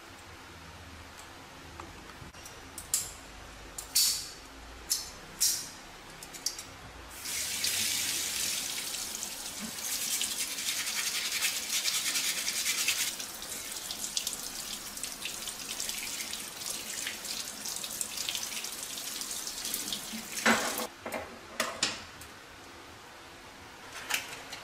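Tap water running and splashing over a crab that is being scrubbed clean by hand in a sink, starting about seven seconds in and stopping near the end. A few sharp clicks come before the water starts and again after it stops.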